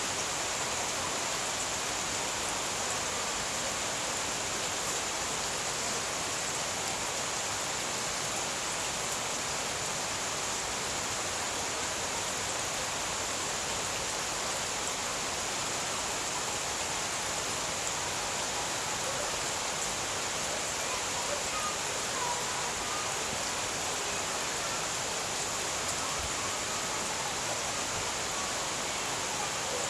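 Steady rain shower falling on garden plants and leaves, a continuous even hiss of rain.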